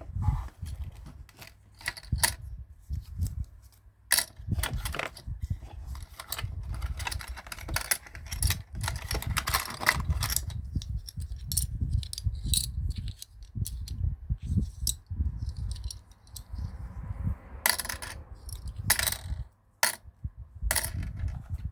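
A pink rabbit toy cash register and its play coins being handled: an irregular run of sharp clicks, clinks and taps of small plastic and coin-like pieces.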